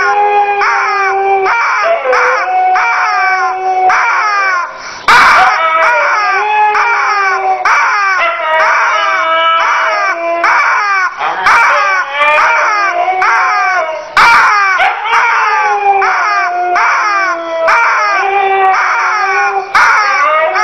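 Siberian husky howling in long, held, wavering notes, with repeated higher falling squawks from a squeezed rubber chicken toy over it. Two sharp clicks cut in, about five and fourteen seconds in.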